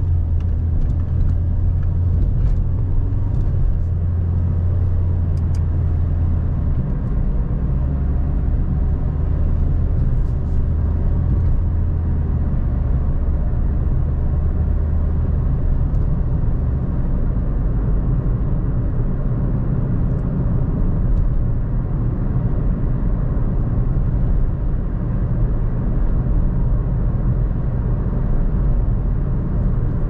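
Car driving along a road: steady low rumble of engine and tyres, with a low hum that eases off partway through.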